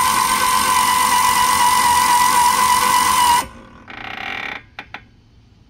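Pop-up camper's 12-volt electric lift winch motor running steadily with a high whine, raising the roof, then cutting off sharply about three and a half seconds in. A brief, quieter burst of sound and a couple of sharp clicks follow about a second later.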